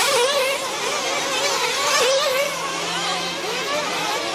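Several 1/8-scale nitro RC truggy engines racing, their buzzing whines rising and falling over one another as the trucks accelerate and back off around the track.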